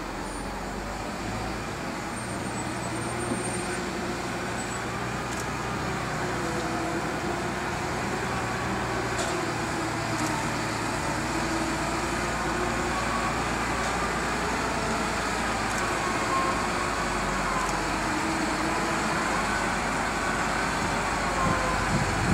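XIAJIN XJ968-23 block handler's diesel engine running as the machine drives closer with a stone block on its forks. The engine grows steadily louder and its note wavers slightly.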